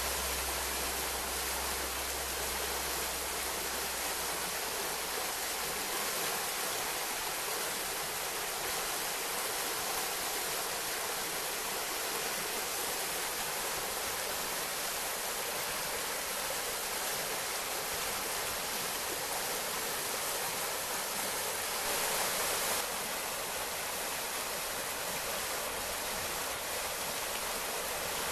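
Snowmelt forest stream running steadily: an even rushing hiss of flowing water, briefly a little louder about three quarters of the way through.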